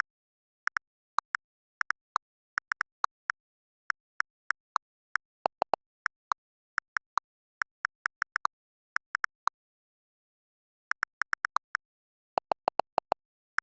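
Xiaomi Redmi Note 13 Pro 5G on-screen keyboard sound effect: short clicks as keys are tapped in an irregular typing rhythm, a few of them lower-pitched, with dead silence between taps. There is a pause of about a second and a half near the end before a last quick run of clicks.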